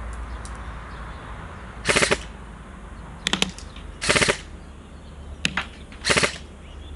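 Lancer Tactical LT-02 M4 CQBR electric airsoft rifle firing short full-auto bursts, each a quick rattle of shots from the gearbox, five bursts about a second apart.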